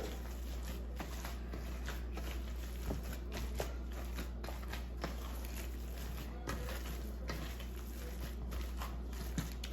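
Hands kneading raw ground beef mixed with egg and oats: faint, irregular wet squishes and small clicks over a steady low hum.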